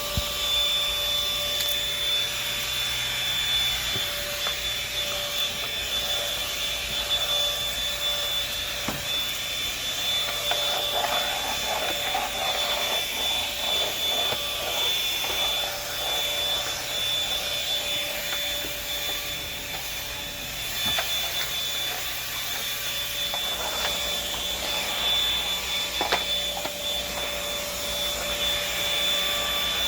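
Vacuum cleaner running steadily: an even rushing of air with a constant high motor whine, and a few small knocks as it is moved.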